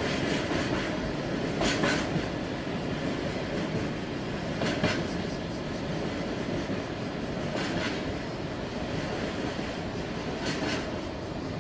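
Freight train wagons rolling slowly past over jointed track: a steady rumble, with a short burst of wheel clatter about every three seconds as the wagons cross a rail joint.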